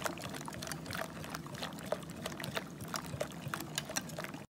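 Wire whisk beating a thin, frothy besan batter in a bowl: wet sloshing with quick, irregular clicks of the wires against the bowl. It cuts off suddenly near the end.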